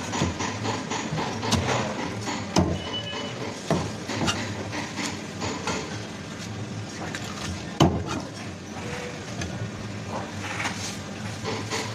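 Knife chopping a tilapia on a wooden block: a few sharp knocks, the loudest near the end of the second third, over the steady din of a busy market.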